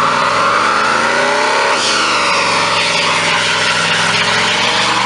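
Third-generation Chevrolet Camaro convertible doing a burnout: the engine is held at high revs and climbs higher about two seconds in, while the spinning rear tyres squeal steadily on the pavement.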